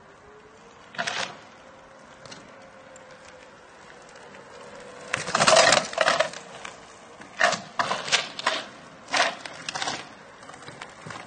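Electric kick scooter ridden in tight turns on asphalt: a faint steady motor whine, broken by a short burst of rushing noise about a second in and a run of louder, rough bursts from about five to ten seconds in.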